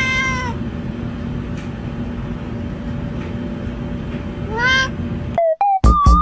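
A cat meowing twice, about four and a half seconds apart, each a short call that rises and falls, over a steady rushing noise. Near the end the background cuts off abruptly and short, louder sounds follow.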